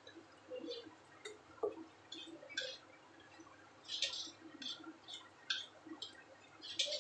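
Spatula scraping and stirring vegetables in a wok: a series of short, irregular scrapes and taps, loudest about four seconds in and again near the end.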